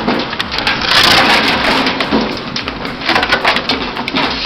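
Firewood splitting machine working through wood: a dense, rapid clatter of cracks and knocks as logs are split, with machine noise underneath.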